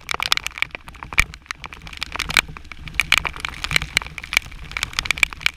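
Honda XR200 single-cylinder trail bike running in the rain, its engine a low hum under dense, irregular ticks and crackle of water and spray hitting close to the microphone.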